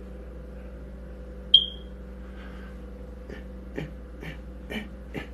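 A single short high-pitched electronic beep about a second and a half in, followed by a few soft clicks, over a steady low hum.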